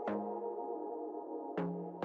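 Background music: soft ambient synthesizer chords, with new notes struck near the start and again about one and a half seconds in.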